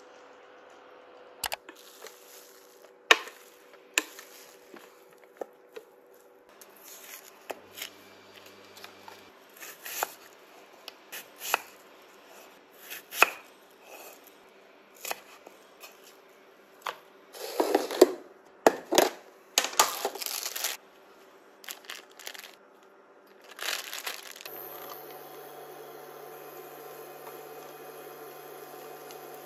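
Chef's knife slicing onion on a wooden cutting board: irregular knocks of the blade on the wood, with a run of louder, noisier strokes near the middle. Near the end a steady frying noise with a low hum takes over, from onion in a pan on an induction hob.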